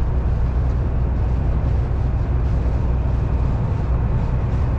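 MAN TGX lorry driving at a steady motorway speed: a constant low engine drone with road and tyre noise.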